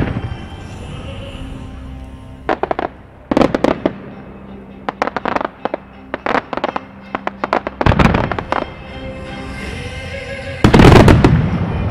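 Music starmine fireworks bursting in rapid clusters of bangs and crackles, with the loudest volley near the end. The accompanying music plays steadily underneath.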